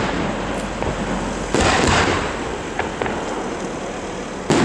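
Aerial firework shells bursting: two sharp bangs close together about a second and a half in and another near the end, each followed by a fading rumble.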